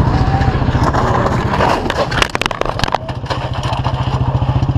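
Vehicle engine and road noise heard from inside the car through a dash camera, a steady low rumble, with a cluster of sharp knocks between two and three seconds in.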